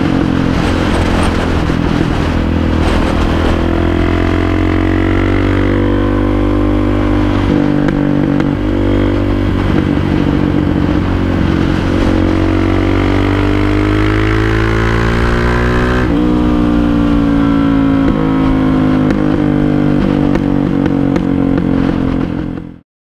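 Suzuki DR-Z400SM's single-cylinder four-stroke engine running under way. The note breaks briefly about eight seconds in, then climbs steadily and drops sharply at a gear change about sixteen seconds in before climbing again. It cuts off suddenly near the end.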